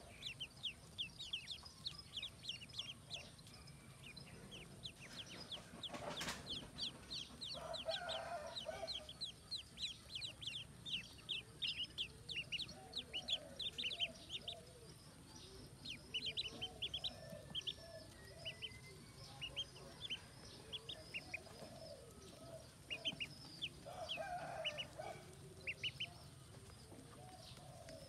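A crowd of ducklings peeping, many short high peeps overlapping in a constant chatter, with a few lower, softer calls now and then.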